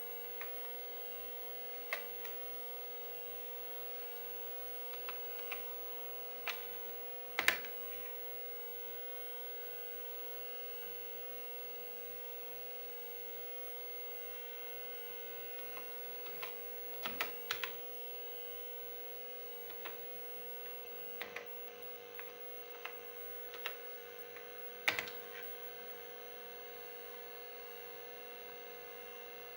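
Amstrad PC 1512 with its added 20MB hard drive running: a steady hum made of several constant tones, broken by irregular short clicks, some in quick clusters.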